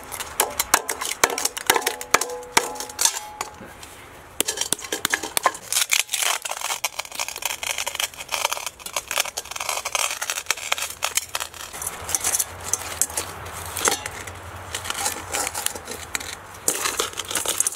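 Breaking open a cooled plaster investment mould to free a cast gold spike: a metal pick knocks and chips at the steel can in a stainless steel pot, then crumbling plaster chunks crackle and clink into the pot as they are pried away by hand. Short metallic ringing comes from the knocks in the first few seconds.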